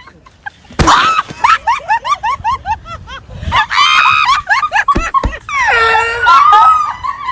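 Excited human voices: rapid bursts of laughing, a high-pitched scream about four seconds in, then a long drawn-out yell near the end. A few sharp thumps come about a second in and around five seconds.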